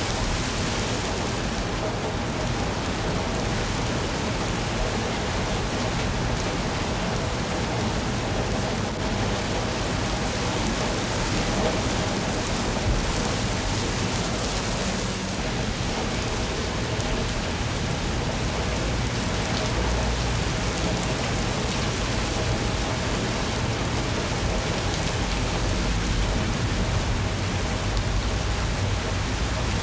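Steady rain falling, an even hiss with a low rumble underneath that swells about twenty seconds in and again near the end.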